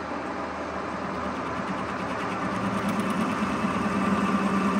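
Metal lathe running steadily, turning a bushing, with a constant low hum that grows slightly louder toward the end.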